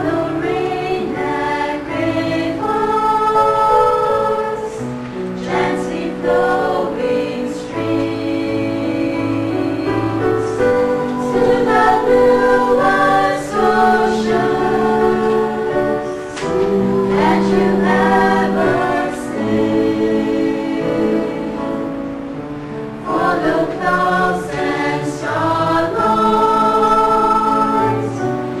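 Church choir singing in harmony, several voice parts holding and changing chords together.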